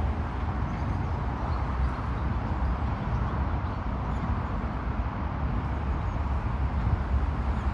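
Steady low rumble and hiss, like wind buffeting the microphone while travelling, with a few faint bird chirps near the end.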